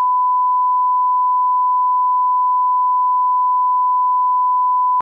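Broadcast line-up test tone that goes with SMPTE colour bars: a single steady, pure, mid-pitched beep at 1 kHz that cuts off suddenly near the end.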